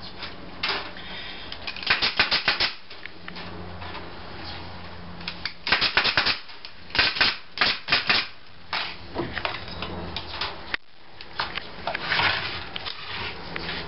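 A brad nailer firing in short rapid clusters of a few sharp clacks, fastening a wire screen's wooden strip onto a beehive screened bottom board. The clusters come several times with pauses between them, over a steady low hum.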